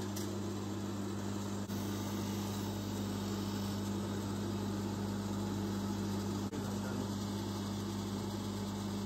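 Durston bench polishing motor running with its buffing wheel spinning, a steady hum that dips briefly twice, while a small gold-plated watch case part is held against the wheel to blend in worn gold plating.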